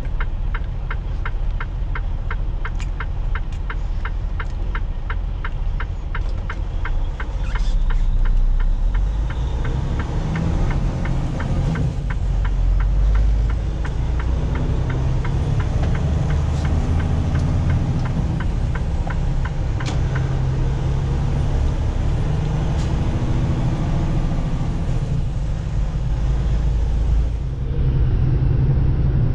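Semi-truck diesel engine running with a steady low rumble, overlaid for the first half by a rapid even ticking of about five a second that fades out as the engine sound grows.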